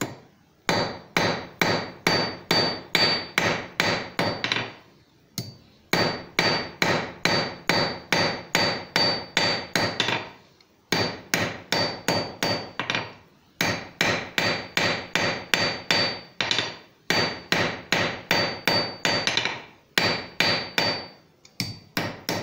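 Hand hammer striking a twisted copper bar on an anvil, about three blows a second in several runs with short pauses, each blow with a bright ring from the anvil. The twisted bar is being forged square again.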